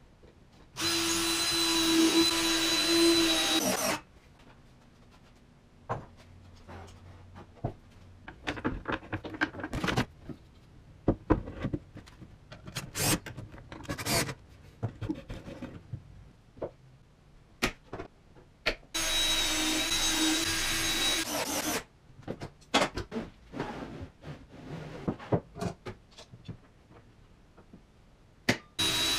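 Cordless drill/driver running steadily at one pitch for about three seconds at a time, driving screws into plywood cabinet parts, twice. Scattered knocks and clatter of wood and tools being handled come in between.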